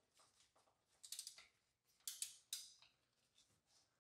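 Hand-tool ratchet clicking in three short runs as a transmission plug is tightened with a torque wrench toward 30 ft-lb.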